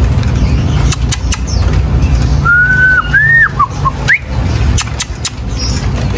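A few clear whistled notes: one held note, a second that rises and then breaks off, two short notes and a quick upward slide, over a steady low rumble.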